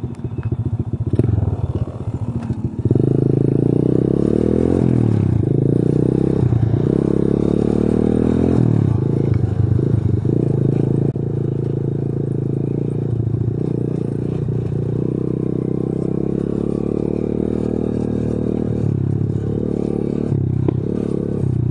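Pitbike 125's single-cylinder four-stroke engine, heard close from the bike itself, pulling away about three seconds in, then riding with the revs rising and dropping again and again.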